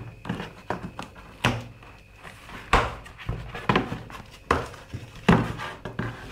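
A series of irregular knocks and thumps as a large cardboard speaker box is handled and shifted.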